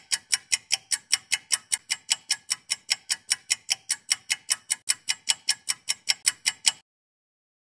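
Rapid, even clicking from a film-projector sound effect to go with a countdown leader, about five clicks a second, which stops suddenly near the end.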